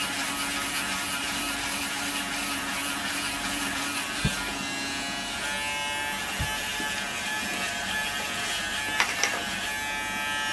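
Braun electric foil shaver buzzing steadily as it is run over neck stubble, with a few faint knocks.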